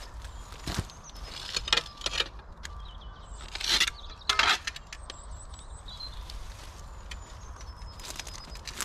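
Dry cut stems and debris crunching and rustling underfoot and in the hands as loose pieces of board and fencing are dragged, pulled up and handled, with irregular scrapes and knocks. The loudest crunches come near the middle.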